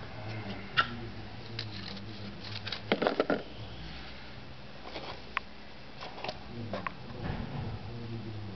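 Small clicks and taps of hands working a wire onto the pins of a TV flyback transformer, with a quick run of sharper clicks about three seconds in.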